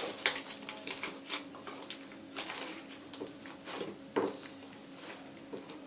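Fluffy shaving-foam slime being squeezed and stretched by hand, giving irregular short sticky clicks and squelches.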